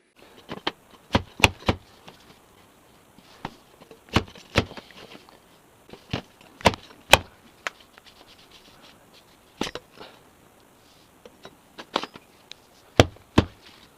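A bicycle fork, turned upside down with a length of PVC pipe over its steerer tube, being slammed onto concrete again and again: repeated sharp knocks, often in quick pairs, as the pipe is used to drive the headset crown race down onto the fork crown.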